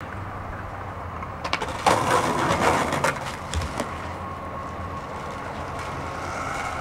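A skateboard slam on concrete: a few sharp knocks, then a loud scraping rush of board and body hitting the pavement about two seconds in, with a couple more knocks as the board clatters away, over steady street background.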